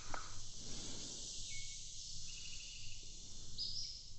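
Summer insect chorus, a steady high drone, with a few short higher calls over it around the middle and near the end.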